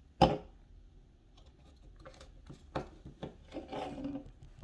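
A 99 Brand shooter bottle being handled: a sharp knock just after the start, then a run of clicks and a short rasping rub as its screw cap is twisted off.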